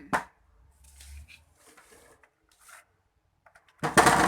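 A click just after the start, then about four seconds in a loud rattling whir as the small clip fan starts up the moment it is plugged in, already switched on.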